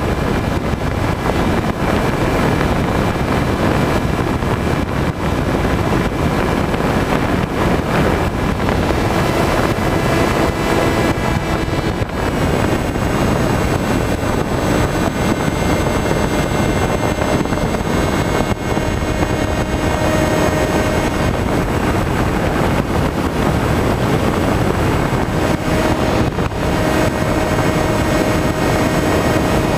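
Skywalker FPV model plane in flight, heard through its onboard camera: a steady rush of wind noise over the microphone with the faint whine of its electric motor and propeller, the whine shifting in pitch a few times as the throttle changes.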